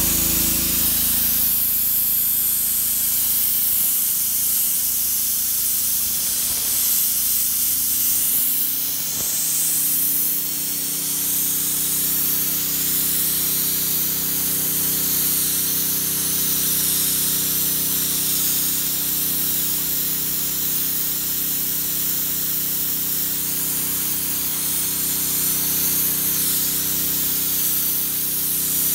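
IBIX Trilogy 28 low-pressure abrasive blaster spraying 120-mesh garnet on compressed air at 2.0 bar against brickwork: a loud, steady hiss of air and grit from the gun nozzle, dipping briefly about nine seconds in.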